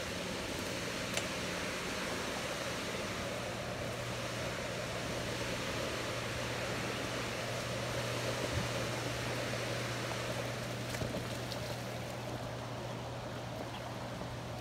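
Steady rush of water from the dam outflow and creek, with a low steady hum underneath.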